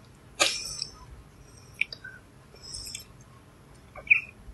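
Mostly quiet, broken by a few short, faint mouth noises and small clicks: a breathy rustle about half a second in, and a brief lip smack near the end.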